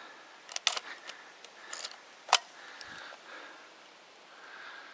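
Handling noise: a few sharp clicks and light metallic rattles, the loudest a little over two seconds in, with soft rustling between them.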